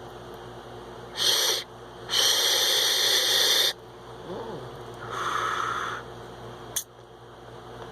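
Someone drawing on a sub-ohm vape tank with a 0.3-ohm coil at 45 watts: a short pull, then a longer airy, hissing draw of about a second and a half through the open airflow. A softer breath follows, then a brief click near the end.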